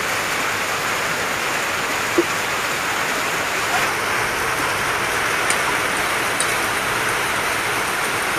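Heavy rain pouring steadily, with a brief click about two seconds in.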